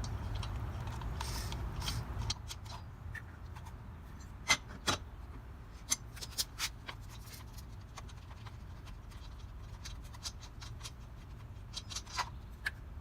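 Scattered sharp metallic clicks and clinks of a lug wrench and lug nuts as the nuts are unscrewed from a car wheel, over a low steady rumble.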